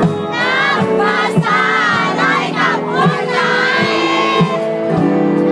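Live pop band playing with a drum beat and singing, with the voices of a large crowd mixed in.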